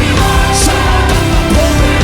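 Live worship band music playing loudly and steadily, with a regular drum beat.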